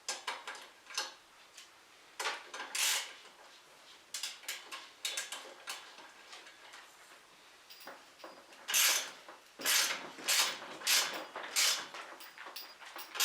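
Metal bike parts and tools clinking and scraping by hand while a seat post and seat are fitted to a BMX frame. About two-thirds of the way through comes a run of about six sharp scraping strokes, roughly two a second.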